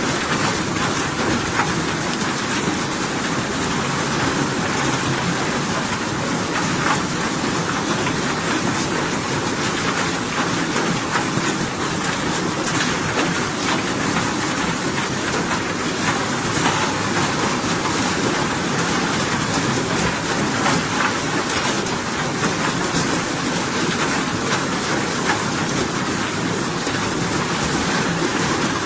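Steady rainfall: a dense, even hiss with fine scattered drop ticks, unbroken throughout.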